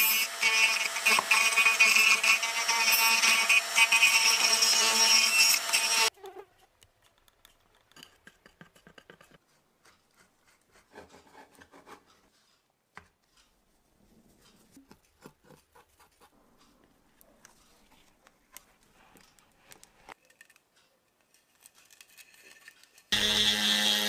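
A high-speed rotary tool with a ball burr grinding into soft, rotten wood, its motor whine holding a steady pitch, cuts off suddenly about six seconds in. Then only faint rustles and small clicks of hand work, until a rotary tool starts sanding the wood again near the end.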